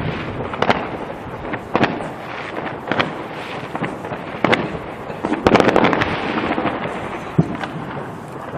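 Fireworks shells bursting, single bangs about once a second with a quick cluster of several bangs about five and a half seconds in, each followed by a rumbling echo.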